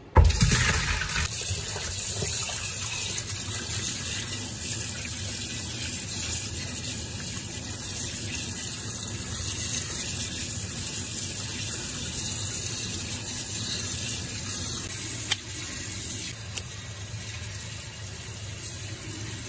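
Tap water running hard into a stainless steel sink while hands rinse and turn diced raw beef cubes under the stream. It starts suddenly and holds steady.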